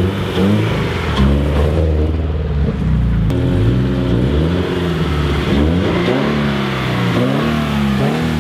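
Subaru BRZ's flat-four boxer engine heard through a newly fitted ARK Grip catback exhaust as the car drives by, revving up and easing off several times, the pitch rising and falling, with quicker swings in the second half.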